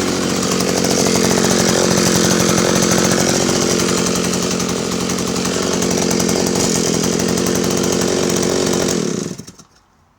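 Jonsered Raket 60 vintage 56cc two-stroke chainsaw engine running steadily, its pitch wavering a little, then switched off about nine seconds in and dying away within half a second.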